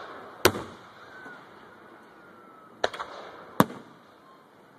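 Aerial firework shells bursting overhead. There is a sharp bang about half a second in, a quick cluster of cracks just under three seconds in, and another loud bang soon after, each trailing off briefly.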